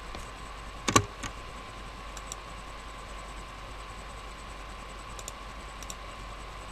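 Computer mouse clicks: one sharp, loud click about a second in, a softer one just after, then a few faint clicks in close pairs, over a faint steady hum.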